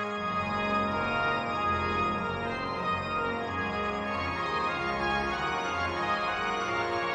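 Pipe-organ music: sustained chords with low bass notes moving underneath.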